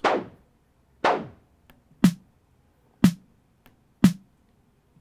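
Synthesized snare drum from Maschine 2.0's Drumsynth Snare, struck about once a second, five hits. The first two have a longer, falling noisy tail, and the later ones are shorter and crisper with more body as the engine is switched from Pow to Sharp. Faint ticks sound between the hits.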